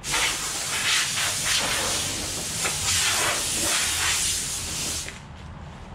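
Compressed air hissing as it blows sanding dust off freshly sanded red oak stair treads, swelling and easing several times, and cutting off about five seconds in.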